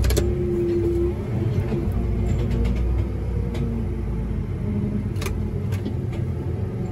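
John Deere 8320R tractor running steadily under load while pulling a plow through sandy soil, a low rumble with a few short clicks and rattles.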